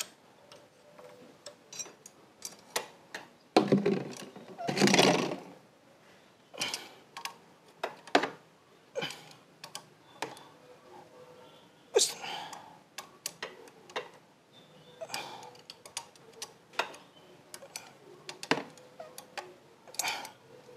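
Metal hand tools and engine parts clinking and knocking now and then as a motorcycle engine is put back together, with a longer, louder scraping noise about four seconds in.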